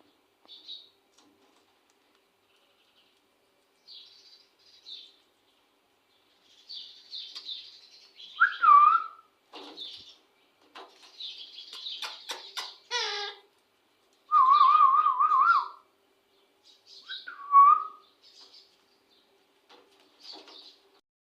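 Indian ringneck parakeet chirping in short high bursts, with a few louder whistles: a pitch glide about 8 s in, a falling run of notes near 13 s, a long warbling whistle about 14 to 16 s in, and another glide near 17 s.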